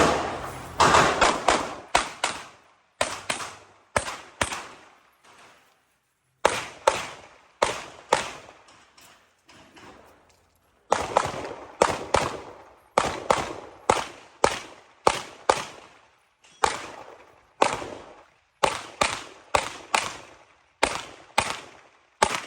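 Handgun shots fired in quick pairs and short strings, each sharp crack trailing off, with a couple of breaks of a second or more between strings.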